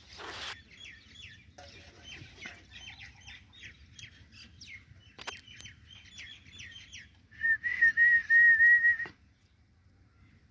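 Small birds chirping in quick, repeated short notes. About seven and a half seconds in comes the loudest sound, a single high, slightly wavering whistle lasting under two seconds, which stops abruptly.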